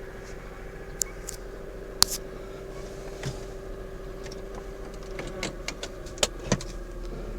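Car's automatic transmission humming: a steady whine held almost throughout, the hum that the owner complains of in the gearbox. Several sharp clicks and knocks sound over it, a few in the first two seconds and two more near the end.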